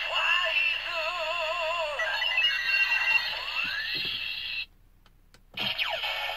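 A DX Ziku-Driver toy belt plays electronic transformation music and effects for the Faiz Ride Watch through its small speaker: wavering synth tones and sweeping pitch glides. It breaks off briefly about four and a half seconds in, then resumes with more gliding tones.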